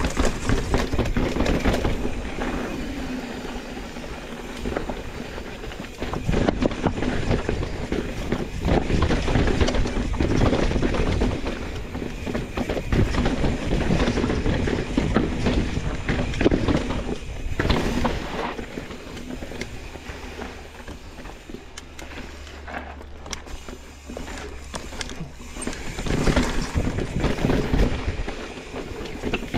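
Mountain bike descending a rocky technical trail: a steady rush of tyre and riding noise, broken by many sharp knocks and clatters as the bike hits rock. It is louder in stretches, with a quieter spell about two-thirds through.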